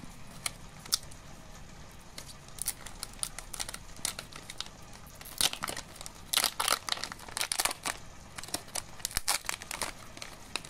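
Thick plastic trading-card booster pack being torn open and crinkled by hand: a run of sharp, irregular crackles, densest in the middle and again near the end.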